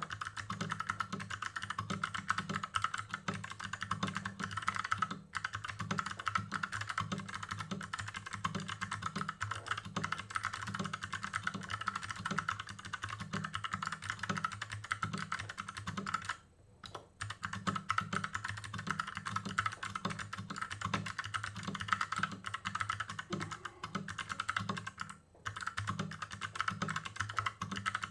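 Fast, continuous touch typing on a custom 60% mechanical keyboard with Kailh Box Pink switches on a steel plate in an aluminium case, a rapid stream of key clicks. It stops briefly three times, longest about two-thirds of the way in.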